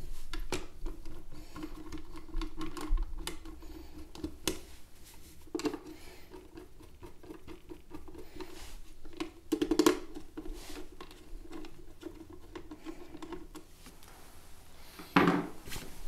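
Small clicks and scrapes of a hand screwdriver turning the bottom-cover screws of an Intel NUC mini PC, with a few sharper knocks, one near the end, over a steady low tone.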